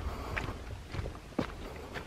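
A hiker's footsteps climbing a forest trail, a crunching strike with each step, about two steps a second.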